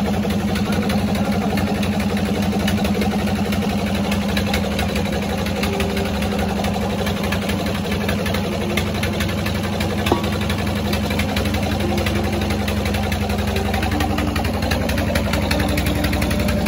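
Belt-driven mustard oil expeller running steadily while it crushes mustard seed: a constant low mechanical hum with a fast, even pulse from its drive.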